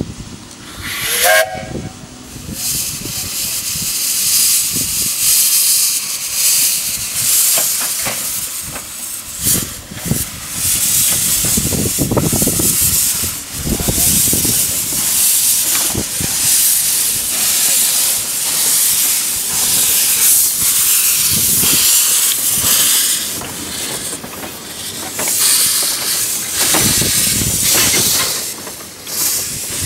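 Narrow-gauge steam locomotive: a short rising whistle blast about a second in, then a steady loud hiss of escaping steam, with the cylinder drain cocks blowing as it moves off.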